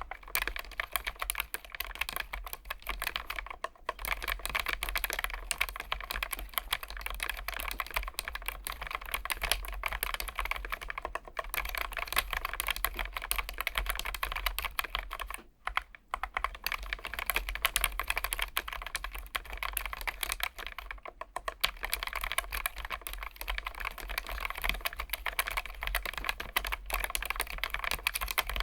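Low-profile mechanical keyboard, a Keychron K1 Max with Gateron low-profile switches, being typed on quickly and continuously: a dense run of key clicks, broken by a few short pauses.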